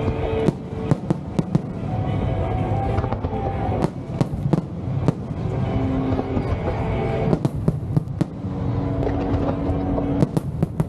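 Fireworks going off in rapid succession: a continuous low rumble of booms with many sharp cracks and pops. Music plays underneath.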